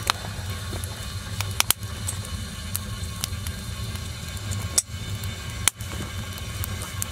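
Wood fire burning in a small wood stove, with sharp crackles and pops from the logs about once a second over a low steady rumble.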